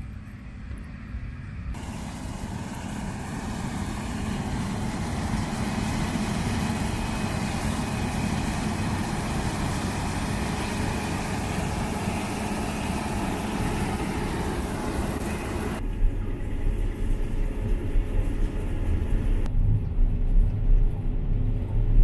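Combine harvester harvesting spring beans: the machine runs steadily under load with a loud, even mechanical hiss and rumble from about two seconds in. About two-thirds of the way through this gives way to a deeper engine rumble with irregular clattering, where beans pour into the grain tank.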